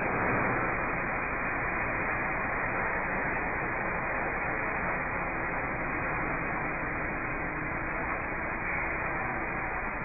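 Steady, even hiss-like background noise with no clear mechanical rhythm or tone, broken only by two or three faint clicks.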